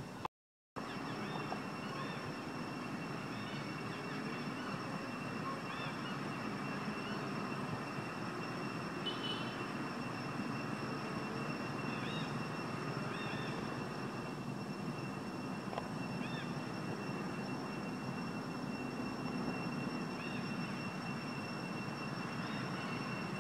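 Steady outdoor background noise with a constant high thin whine, and now and then a faint short chirp.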